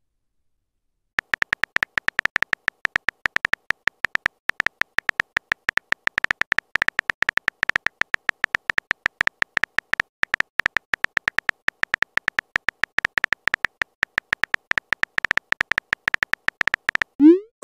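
Texting app's keyboard typing sound effect: a long, rapid, irregular run of short clicks, several a second, starting about a second in. Near the end comes a short rising blip as the message is sent.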